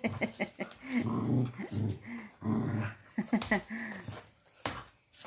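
A dog growling in play, in several low rumbles of about half a second to a second each.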